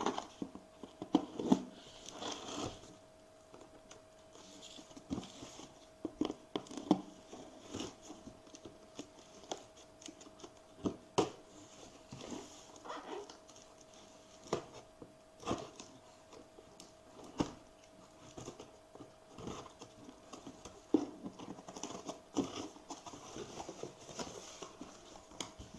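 Packing tape on a cardboard box being slit with a small blade, and the cardboard handled and its flaps pulled open: irregular scratching, ripping and sharp knocks. A faint steady hum runs underneath.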